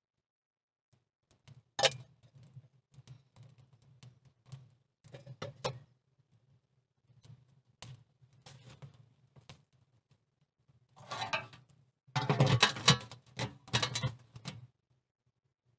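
Scattered clicks and knocks, then a loud run of metallic scraping and rattling from about eleven seconds in, as a perforated metal door is fitted over the mouth of an iron stove.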